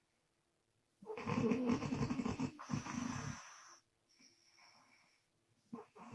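A woman snoring on the out-breath, her lips flapping: after about a second of quiet comes a loud fluttering snore lasting a couple of seconds, then a softer breath, and another loud snore starts near the end.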